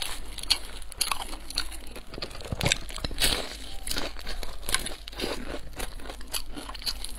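Biting and chewing a crispy, flaky flatbread stuffed with minced meat: many sharp, irregular crunches, close to the microphone.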